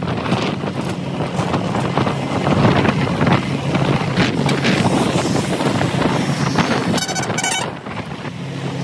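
A motor vehicle running steadily along a road, with wind buffeting the microphone. Near the end there is a brief high, two-part tone.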